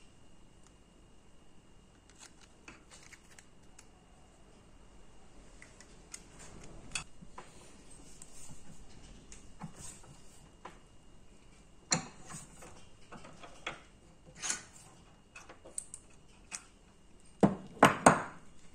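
Small steel parts of a Marksman dart pistol, tubes and a rod, clinking and tapping against each other and a steel bench vise as they are handled. Scattered light clicks, a sharp clink about two-thirds of the way in, and a quick cluster of louder knocks near the end.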